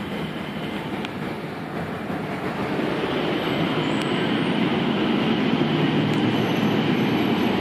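Mitsubishi Crystal Mover automated people-mover train on rubber tyres pulling into the platform. Its steady running noise grows louder from about halfway through as the car comes alongside.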